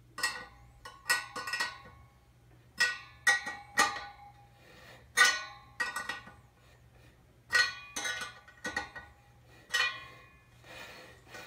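Steel motorcycle wheel spokes tapped one after another, about a dozen short metallic pings, each ringing briefly with a clear pitch. The spokes are being checked by their ring for any that are loose.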